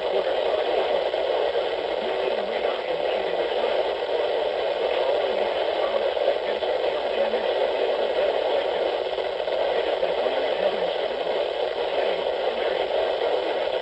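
Steady static hiss from a weather radio receiver, with no voice or alert tone coming through.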